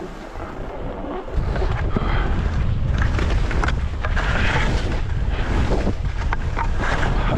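Wind buffeting a skier's microphone during a downhill run, with skis hissing and scraping over the snow in surges. The wind rumble gets louder about a second in and stays strong.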